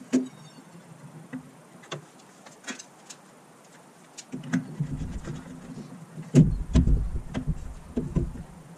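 A long metal anode rod being lowered into a hot water tank's top port by hand: a few faint clicks at first, then, about halfway through, low rumbling knocks and scrapes as the rod rubs and bumps against the fitting.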